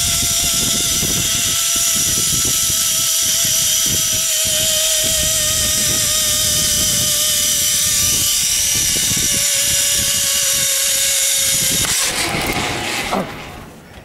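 A loud, steady mechanical whirring whine with a hissing rush over it, its pitch slowly falling; it stops abruptly near the end.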